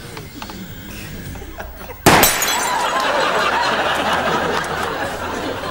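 A single pistol shot about two seconds in, with the light bulb shattering, followed by sustained studio audience laughter.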